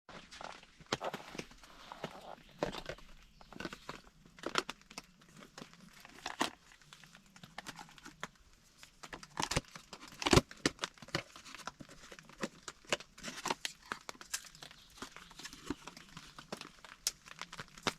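Irregular crackling and rustling, a dense run of small sharp clicks, with two louder knocks about ten seconds in.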